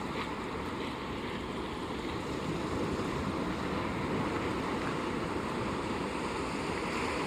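Steady rushing noise of water and wind, getting a little louder partway through, with no distinct cough or call standing out.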